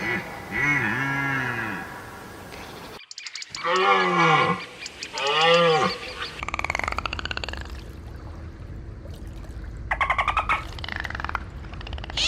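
A series of different animal calls, one after another. After an abrupt cut about three seconds in come two loud calls that rise and fall in pitch, then stretches of rapid pulsed calling.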